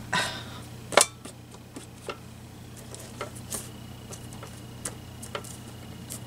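Sharp clicks and taps of hard plastic as a stamp press and its clear acrylic stamp plate are handled and paper is pressed down on it. The loudest click comes about a second in, with a few lighter taps after it.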